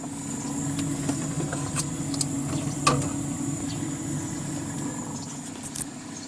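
A steady mechanical hum, such as a converted refrigerator and its small fans running, with scattered light clicks and one sharper knock about three seconds in.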